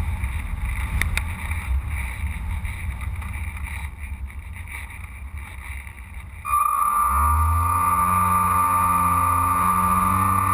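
Airflow rushing over the microphone of a Carl Goldberg Electra RC sailplane while it glides. About two-thirds of the way through, its electric motor starts with a sudden steady high whine and spins up, then runs steadily and loudly.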